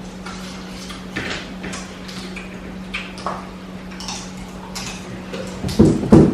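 Scattered clicks and clatter of seafood shells and cutlery being handled while eating, over a steady low hum, with two louder knocks near the end.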